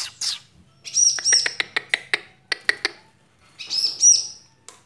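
Wild bar-winged prinia calling in its cage: a quick run of sharp chip notes, then two ringing arched call notes near the end. These are the agitated calls of a freshly caught bird that has not yet settled.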